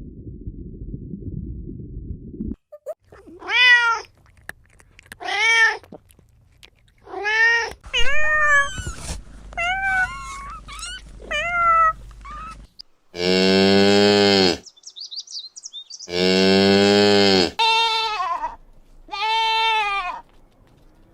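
A cat meowing repeatedly, a string of short calls that rise and fall in pitch, some quick and chirpy. In the middle come two long, loud, lower-pitched animal calls, each held about a second and a half. The clip opens with a couple of seconds of low rumbling noise.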